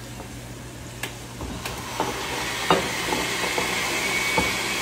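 Countertop blender switched on about halfway through, its motor running steadily with a thin high whine as it blends a tomato and chipotle salsa. A few sharp clicks come before it starts, and frying oil sizzles in a pan underneath.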